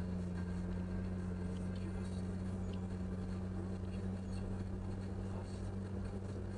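Volkswagen Passat B5's V6 engine and road noise heard inside the cabin while cruising at a steady speed: an even low drone that holds one pitch throughout.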